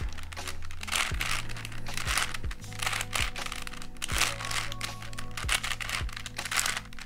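Rapid clicking and clacking of a 5x5x4 cuboid puzzle's layers as they are turned in quick succession. Background music with a steady beat plays underneath.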